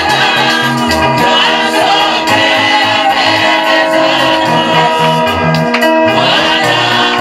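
Gospel praise-and-worship music: several voices singing together over sustained chords and a moving bass line.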